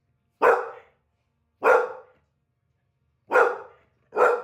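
A large dog barking loudly, four deep single barks spaced about a second apart.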